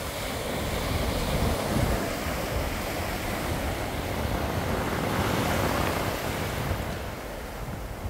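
Small waves breaking and washing up a sandy shore, the rush of surf swelling twice, with wind rumbling on the microphone.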